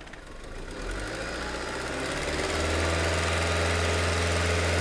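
2005 Honda Civic's 1.7-litre four-cylinder engine being brake-boosted: revs and load climb over the first two and a half seconds, then hold steady. On a fresh set of spark plugs, it runs under load without a misfire.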